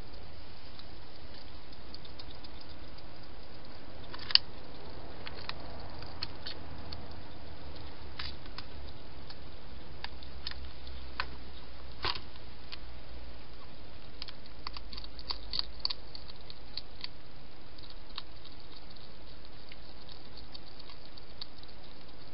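A wild hedgehog feeding at a dish, making scattered small clicks as it eats: one sharper click about four seconds in and a quick run of clicks about two-thirds of the way through, over a steady hiss.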